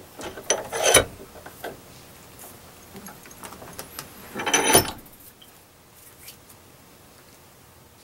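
Steel bench vise being worked by its sliding handle: two short bursts of metal clatter with a light ring, about a second in and again around four and a half seconds in.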